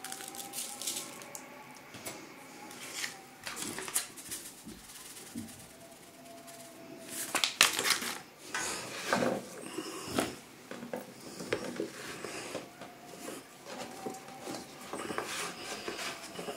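Scattered clinks and knocks of a metal spoon against plastic containers and a plastic bowl as salt and paprika are scooped and sprinkled over raw potato wedges, the loudest a little past the middle. Near the end, raw potato wedges are shifted by hand on a plastic cutting board.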